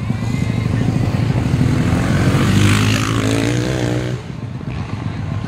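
Motocross dirt bike engines running on the track. One bike revs up loudly through the middle and eases off about four seconds in.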